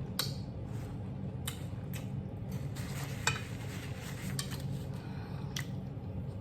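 Fork clicking and scraping against a plate in irregular taps while eating, over the steady low hum of a running central air unit.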